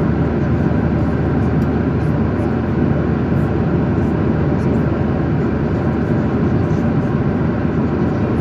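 Steady drone of a jet airliner heard from inside the passenger cabin: engine and airflow noise, even in level throughout.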